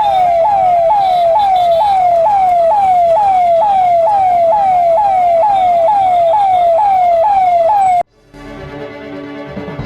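Electronic siren sounding in a fast repeating cycle, each cycle jumping up in pitch and sliding down, about twice a second; it is the signal for people to stop and put on masks. It cuts off suddenly near the end.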